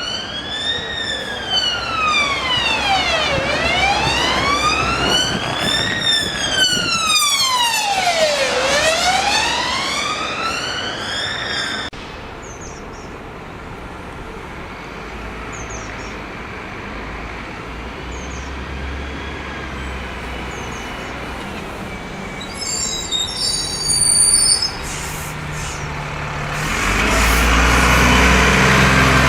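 Emergency vehicle siren wailing, slowly rising and falling about once every five seconds, stopping abruptly about twelve seconds in. Steady road traffic follows, with a brief high squeal around twenty-three seconds in and a vehicle getting louder near the end.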